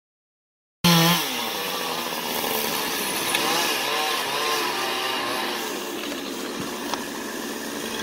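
Chainsaw running at high revs and cutting through a spruce trunk, its pitch dipping and rising as the chain bites; the sound starts suddenly about a second in.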